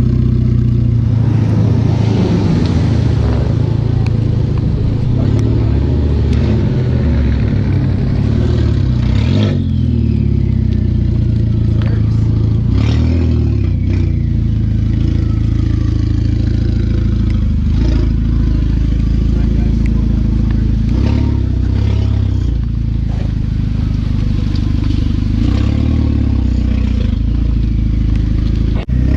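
Audi A4 2.0T turbocharged four-cylinder engine running, with the pitch rising and falling as it is revved, after a flywheel and clutch swap.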